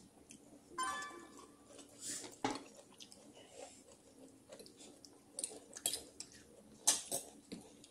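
Table eating sounds: a fork and spoon clinking and tapping against dishes and plastic food containers, with scattered short clicks and some chewing. One clink about a second in rings briefly.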